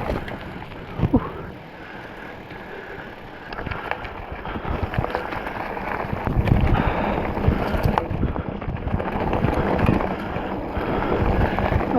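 Wind rushing over the microphone with the rumble and rattle of a mountain bike, a Specialized Stumpjumper 6Fattie, rolling over a bumpy trail. It dips after about a second and grows louder from about four seconds in.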